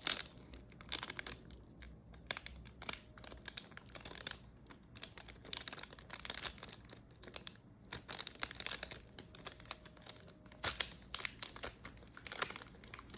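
Crinkling and tearing of trading card packaging being opened by hand: a run of irregular crackles and rips.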